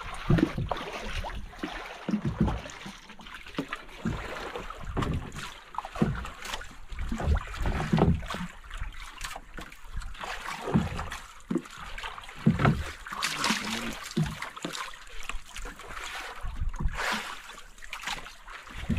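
Water lapping and slapping irregularly against the hull of a drifting outrigger fishing boat, with wind gusting on the microphone.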